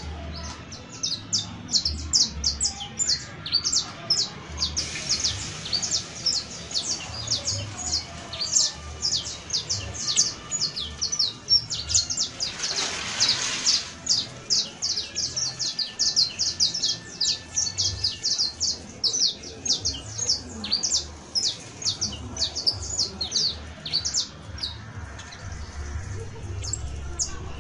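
Saffron finch (canario basto or criollo) singing a long, fast, unbroken run of sharp, high, downward-sweeping chirps. A brief hiss rises under the song about halfway through.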